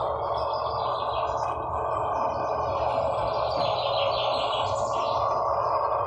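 Birds chirping in a bird video played through a small device speaker, over a steady background hiss.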